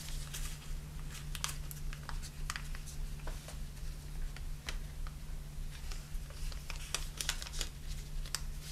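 Origami paper crinkling and rustling under the fingers in scattered small crackles as a folded edge is gently rolled and coaxed under, over a faint steady hum.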